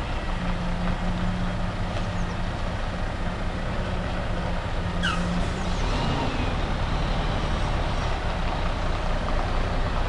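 Volvo FH 460 articulated lorry's diesel engine running at low speed as the truck creeps forward with a heavy load on its low-loader trailer. A steady hum in the engine noise stops about halfway through, and there are a couple of short high chirps around the same point.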